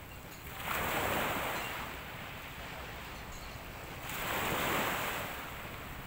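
Small sea waves washing around the swimmers in shallow water, with two swells of surf about three seconds apart. Wind rumbles on the microphone underneath.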